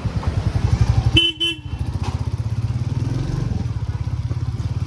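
Royal Enfield Bullet 350's single-cylinder engine running with a steady low thump. A vehicle horn sounds briefly, in two short pulses, about a second in.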